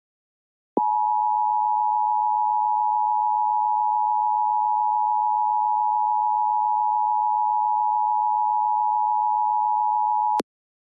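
Emergency Alert System attention signal: two steady tones sounded together, starting about a second in and cutting off sharply after some nine and a half seconds. It heralds a broadcast emergency warning message.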